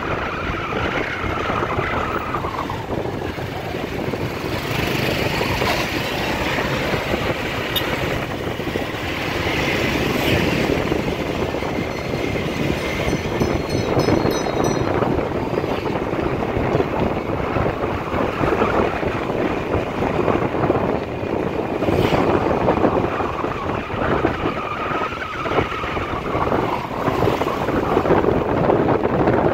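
Motorbike engine running on the move with road noise, heard from the pillion seat; its pitch climbs and falls as the bike speeds up and slows, near the start and again later on.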